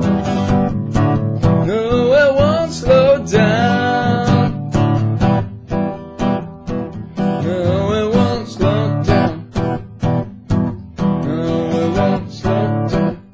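Acoustic guitar strummed in a steady rhythm, with a wordless sung melody that wavers in pitch coming in over it in three phrases.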